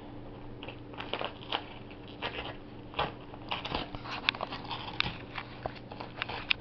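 Wrapping paper crinkling and crackling in irregular snaps as a Jack Russell terrier bites and paws at a wrapped present.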